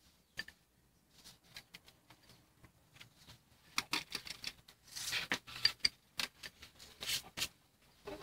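Scattered clicks, taps and rustles from a plastic dome surveillance camera and its cable being handled, busiest and loudest about four to five seconds in.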